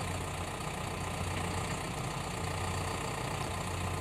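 Farm tractor engine running steadily at low revs while the bale grapple is worked.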